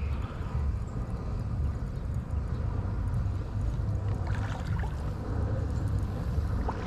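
Steady rumble of river water pouring over a dam.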